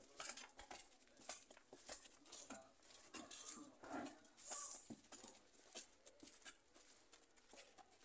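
Hooves of a walking black-and-white dairy cow and people's footsteps on concrete: irregular taps and scuffs, several a second. A brief hissing burst about halfway through is the loudest sound.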